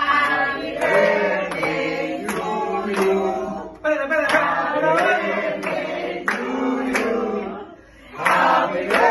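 A group of people singing together and clapping along in time, about two claps a second, with a short break in the singing about eight seconds in.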